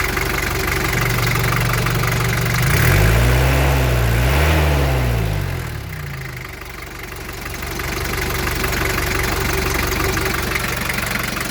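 Daihatsu Taft GT F70's diesel engine idling, revved twice in quick succession about three seconds in, rising and falling in pitch, then dropping back to a steady idle. It runs smoothly with no blow-by, a healthy engine that sounds very crisp.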